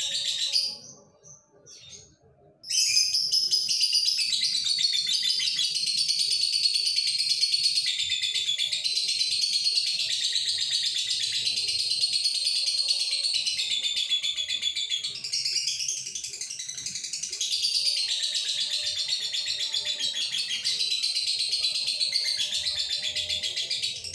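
Male Fischer's lovebird in breeding condition singing a long, unbroken song of rapid, high-pitched chattering. A brief pause of under two seconds comes about a second in, and then the song runs on without a break.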